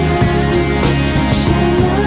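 Background music: a song with sustained notes over a bass line and a steady beat.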